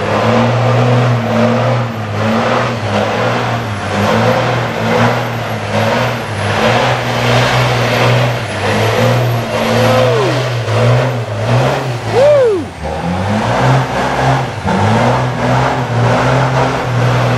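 Diesel engine of a MAN race truck held at high revs during a burnout, the revs surging and dropping back over and over as the rear tyres spin and smoke with a steady hiss. Two short falling whistle-like tones sound about two-thirds of the way through.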